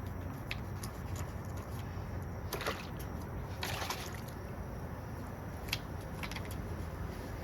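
Wet rag scrubbing and wiping on chainsaw parts, with small clicks and two short, louder scrubbing strokes a little after two and a half seconds and near four seconds in, over a steady low rumble.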